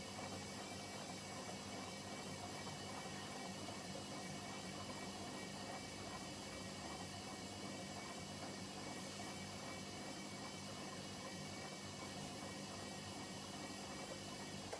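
Hoover H-Wash 300 washing machine running, a steady motor hum with hiss.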